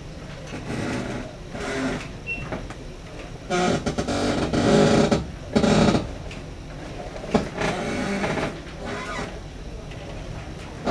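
Ship's interior room tone: a steady low rumble of machinery and ventilation. A few louder, muffled bursts of sound come about a third of the way in and just past the middle.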